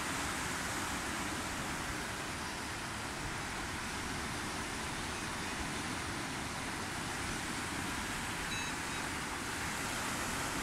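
Floodwater of a stream in spate rushing by: a steady, even roar of fast-moving water.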